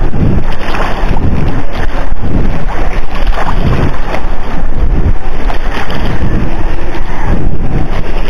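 Loud wind buffeting the microphone: a dense, irregular rumble that swells and drops throughout.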